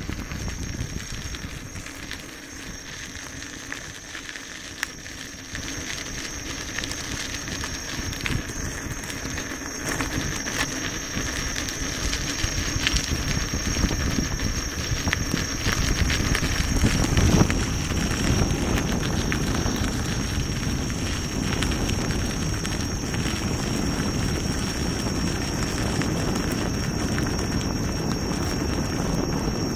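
Gotway MSuper3 electric unicycle rolling along a gravel path: tyre crackling over gravel with wind rumbling on the microphone, and a thin steady high whine. It gets louder about a third of the way in.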